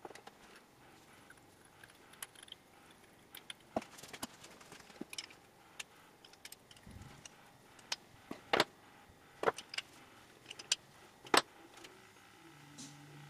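Small metallic clicks and clinks as a black iron pipe tee, a brass fitting and a wrench are handled and knocked together, with a few sharper clinks in the second half.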